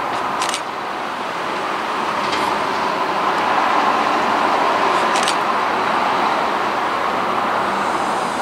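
A CFL Z2 (Class 2000) electric multiple unit approaching a station, heard as a steady rolling rumble that grows slightly louder over the first few seconds. A few brief high-pitched chirps sound over it.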